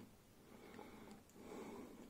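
Near silence: room tone, with two faint soft swells of noise.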